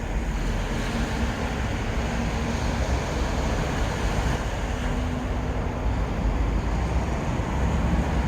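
Steady wind rumble on the microphone over the wash of sea surf.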